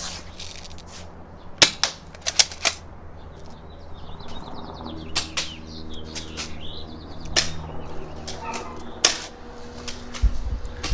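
A string of sharp, irregularly spaced pops from BB guns being fired, several in quick succession in the first few seconds and more later, over a low steady hum.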